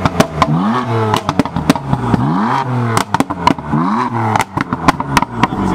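BMW M4's twin-turbo straight-six being revved in short blips, about one every second and a half, the pitch rising and dropping each time. Sharp exhaust pops and crackles fire on each lift-off.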